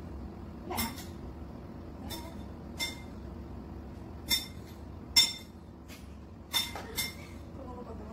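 Glass bowl clinking with short, lightly ringing taps, about seven in all at irregular intervals, as marshmallows are dropped into it by hand.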